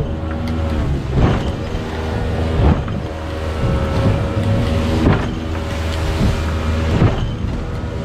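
A small open boat's engine running steadily at speed, its pitch dipping slightly now and then, while the hull slaps into waves in rough, stormy sea and throws spray every second or two.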